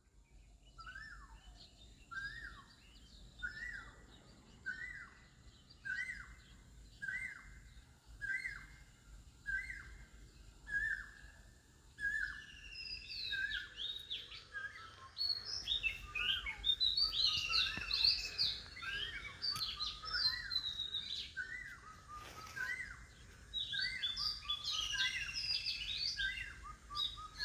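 Birds singing. One bird repeats a short call a little over once a second. About halfway through, other birds join with louder, higher, more varied song.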